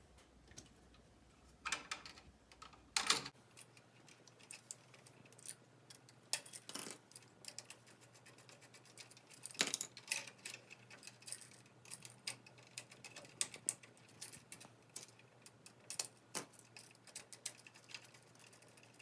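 Irregular small clicks and taps, a few sharper than the rest, from a screwdriver and pliers working copper wires onto an electrical outlet's screw terminals.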